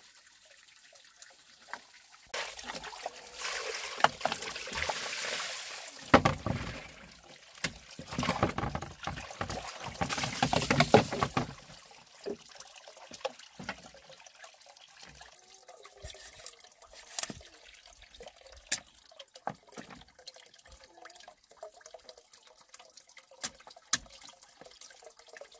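Water pouring and splashing in uneven surges for about ten seconds, then only scattered light knocks and clicks.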